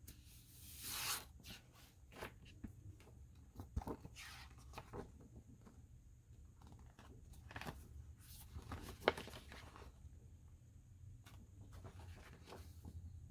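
Large glossy paper sheets of a vinyl record's folded insert and sleeve being handled and unfolded: paper rustling and sliding, with a loud swish about a second in and scattered crinkles and sharp taps after it.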